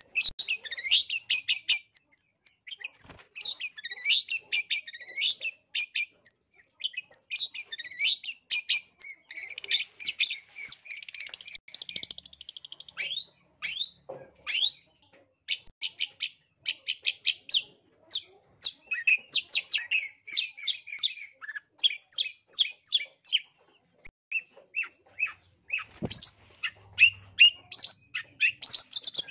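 Long-tailed shrike (cendet) singing in full voice: a fast, near-continuous chatter of short, scratchy notes, with a short pause about two-thirds of the way through.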